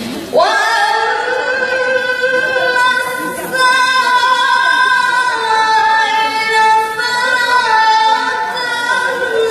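A girl's voice reciting the Quran in a long melodic phrase, holding drawn-out notes with small steps in pitch rather than speaking separate words.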